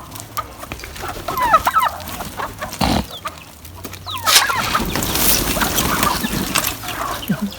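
A flock of chickens clucking as they crowd in for scattered feed. A loud rustling noise runs through the second half.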